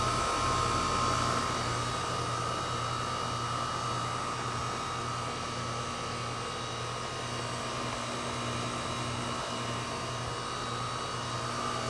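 2008 Goodman heat pump outdoor unit running steadily in heat mode: a compressor and fan hum with a low steady drone and a higher steady tone.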